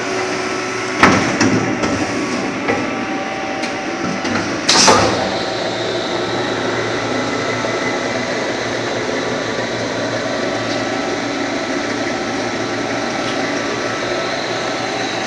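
ML 1150H back-knife wood-turning lathe running, a steady machine hum with several held whining tones. Two loud clattering knocks come about a second in and near five seconds, and after that it runs on evenly.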